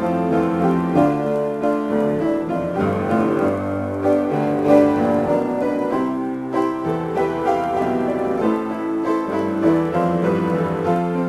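Solo piano improvisation: sustained chords with a bass line and flowing notes in the middle and upper range.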